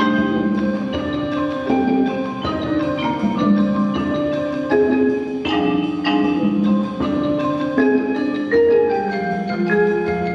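Percussion ensemble playing a concert piece, with mallet instruments sounding many struck pitched notes that ring on, some of them held as fast repeated strokes.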